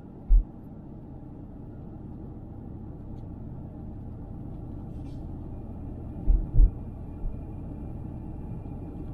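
Steady low rumble of a car driving, heard from inside the cabin. A few short low thumps break through: one near the start and two close together about six seconds in.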